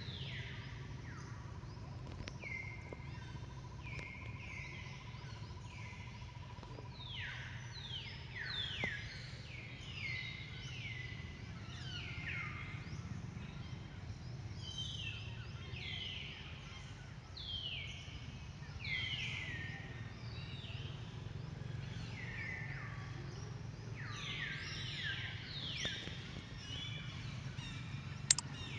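Birds calling: a continuous stream of short falling notes, several overlapping, over a steady low background rumble. There is a single sharp click near the end.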